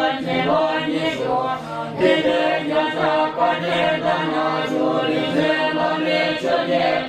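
Young Buddhist monks chanting together in unison, many voices held on steady pitches, with a short break about two seconds in.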